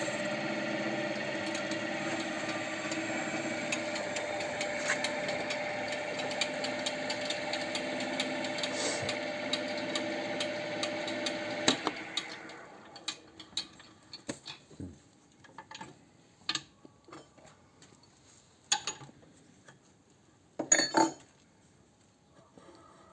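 A boring machine for connecting-rod bushings runs with a steady hum, then spins down and stops about halfway through. Scattered metal clinks and knocks follow, with a louder clatter near the end.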